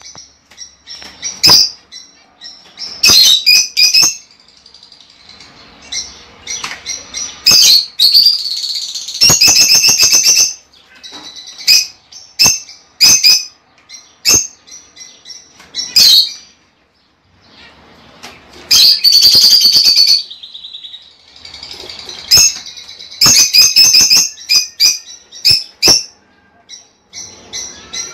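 Lovebirds chattering: irregular bursts of sharp, high chirps and squeaks with short gaps between them, and a brief lull a little past halfway.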